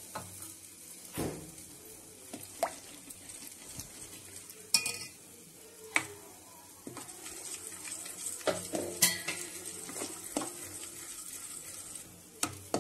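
Steel spoon stirring wet semolina and water in a steel bowl, clinking against the bowl at irregular moments over a steady wet hiss that gets a little louder about halfway through.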